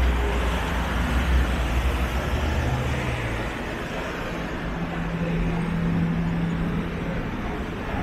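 City street traffic: a heavy vehicle's low engine rumble for the first few seconds, dying away, then a steady low hum over the general traffic noise.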